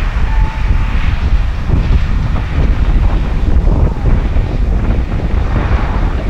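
John Deere 7R 330 tractor running while pulling a Köckerling Quadro cultivator, with heavy wind buffeting on the microphone.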